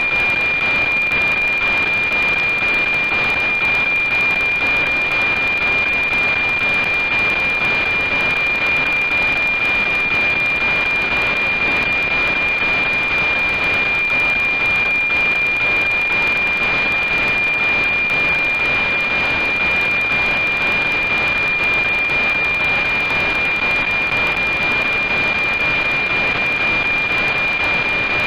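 NOAA-19 weather satellite's APT signal at 137.1 MHz, demodulated by a software-defined radio: a steady high tone at the 2400 Hz subcarrier over loud, even hiss.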